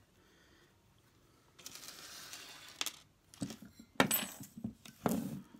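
Small metal RC parts (pins, washers and bearings) clinking as a hand picks through them and sets them down on the desk: a soft rustle first, then a few sharp clinks, the loudest about four seconds in, ringing briefly.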